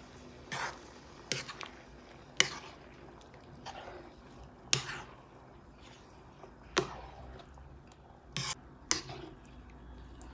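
Wooden spatula scraping and knocking against a frying pan while stirring a thick cream sauce, about eight short strokes at an uneven pace.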